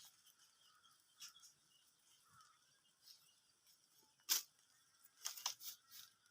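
Quiet yard ambience with a few short sharp crackles or snaps, the loudest about four seconds in and several more clustered near the end.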